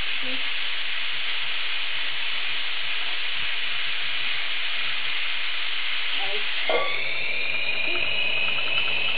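Stovetop pressure cooker's valve let open by hand while still under high pressure, scalding steam venting in a steady loud hiss. Near the end a whistling tone joins the hiss.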